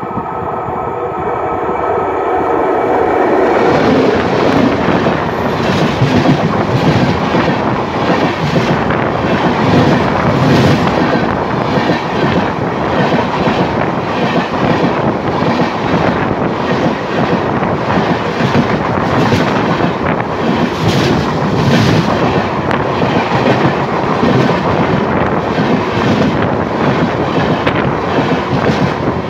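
An approaching express train gives a steady multi-tone hum at first; about three seconds in, this gives way to the loud rumble and repeated clatter of the train's locomotive and coach wheels rolling over the rails directly overhead.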